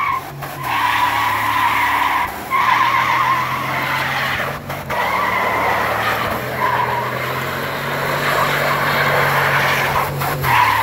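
Dodge Durango's V8 held at high revs while its tyres spin and squeal in a smoky burnout. The squeal breaks off briefly several times while the engine runs on steadily.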